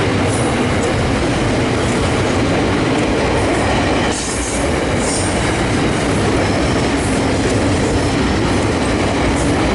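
Container freight train's loaded flat wagons rolling past on the rails, their wheels making a loud, steady rumble.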